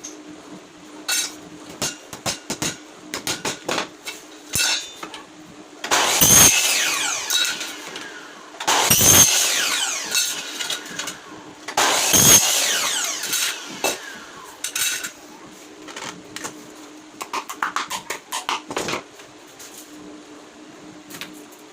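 Workshop handling and tool noise while a flight case is assembled: scattered sharp clicks and knocks of parts being handled, with three louder ringing, clattering bursts about three seconds apart near the middle, over a faint steady hum.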